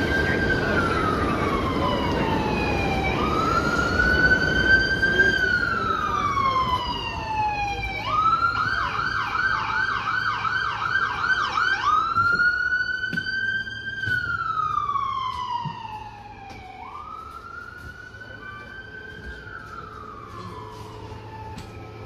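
Emergency vehicle siren heard from aboard a bus: a slow rising and falling wail that switches about eight seconds in to a fast yelp of roughly two to three cycles a second, then goes back to the wail about four seconds later. It grows clearly quieter about sixteen seconds in.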